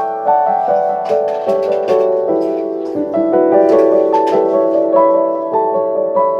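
Background music: a gentle piano-like keyboard melody playing steady, evenly paced notes.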